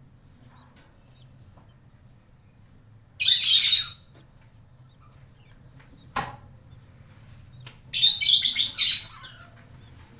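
Hagoromo budgerigar giving two loud, harsh bursts of sound, about three seconds in and again about eight seconds in, each lasting around a second, with a single sharp click between them.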